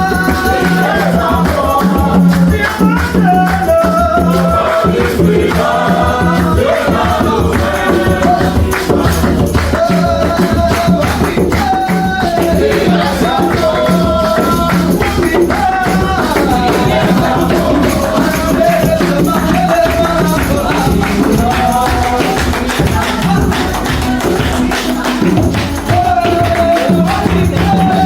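Gospel worship music with a steady beat, a jingling tambourine or shaker, and a wavering melody line over a sustained bass.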